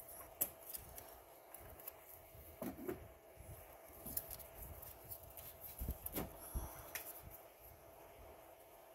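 Faint scattered clicks and rubbing as gloved hands work a rubber engine breather hose off its plastic port on the air intake duct, over a faint steady hum.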